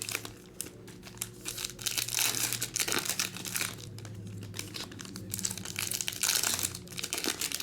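Trading-card pack wrappers and plastic packaging crinkling and tearing as they are handled and opened, in waves of dense crackling.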